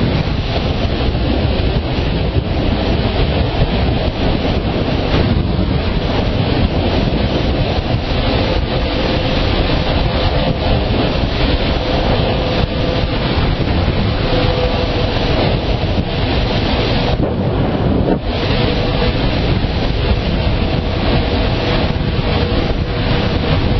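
Wind rushing over the GoPro microphone on a moving motorcycle, a loud steady roar, with the KTM's engine note faintly underneath as a steady hum.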